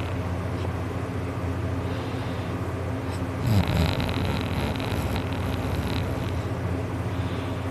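Loud snoring from a deep sleeper: one long, rough snore starting about three and a half seconds in and lasting about two seconds, over a steady low hum.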